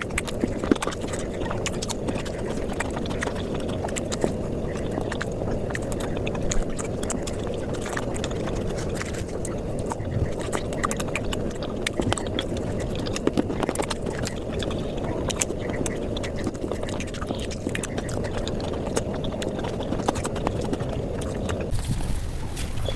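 Mukbang eating sounds sped up five times: a fast, continuous stream of chewing, smacking and mouth clicks from eating flatbread with curry.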